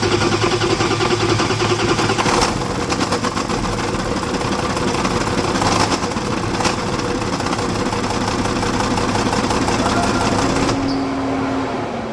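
BMW N57 3.0-litre straight-six diesel running just after start-up with a loud, rapid metallic knock. The knock comes from a failed bearing shell, whose locating tab was later found sheared off. About eleven seconds in, the clatter stops and the engine sound dies down.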